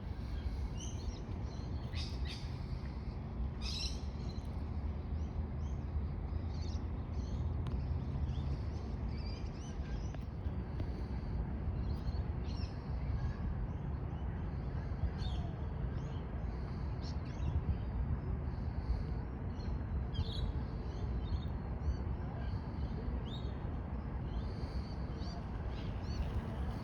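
Wild birds calling outdoors, with many short chirps and quick rising notes scattered throughout, over a steady low rumble.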